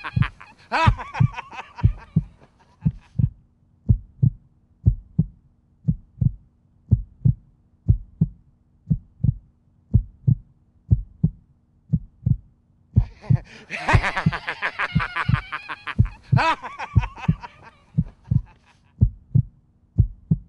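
Heartbeat sound effect: steady paired low thumps, about one beat a second. A person's voice comes over it at the start and again about two-thirds of the way through.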